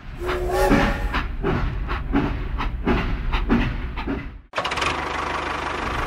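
Mechanical clatter: uneven knocks and rattling for about four and a half seconds, then a sudden break and a steady fast rattle like an engine running.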